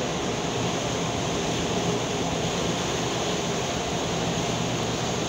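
Steady drone of the filming boat's engine under a continuous rush of wind and water, with a low even hum and no breaks.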